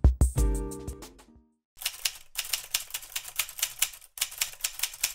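A short music sting with drum hits dies away in the first second or so. After a brief silence, a typewriter sound effect clicks rapidly in several runs with short pauses.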